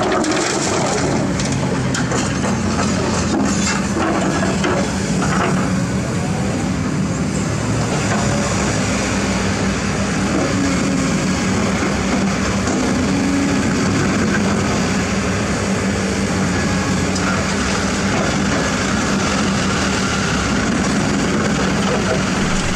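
Kobelco SK200-10 excavator's diesel engine running steadily under work, with a low hum throughout and some knocking and clatter in the first few seconds.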